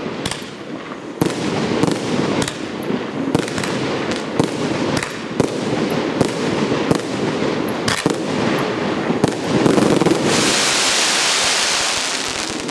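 A 1.2-inch (30 mm) firework cake firing shell after shell, with sharp reports coming a few to the second. About ten seconds in, a dense crackling hiss swells up from crackling stars and then fades.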